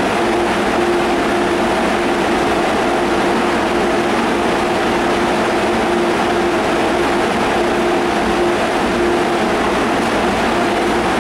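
MTR Adtranz-CAF electric multiple unit standing at the platform, its onboard equipment giving a steady hum and rushing noise. A constant tone runs through it, and a lower tone drops in and out.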